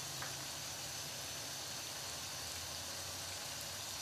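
Onions, tomatoes and green chillies frying in oil in a wok, a steady sizzle.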